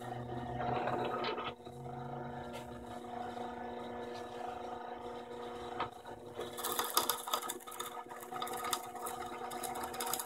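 Drill press running steadily while a 1.5-inch bit bores through a pine 2x4, its motor hum constant; about six and a half seconds in the scraping of the bit cutting through the wood grows louder and rougher.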